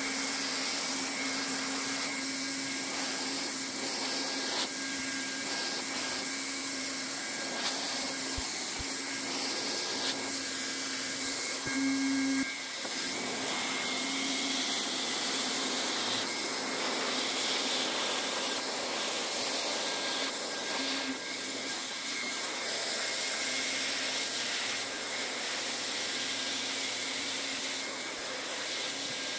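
A 1600-watt hot-air plastic welding gun blowing steadily while polypropylene sheet is tacked and welded: a rush of hot air with a low fan hum. The sound dips briefly about twelve seconds in.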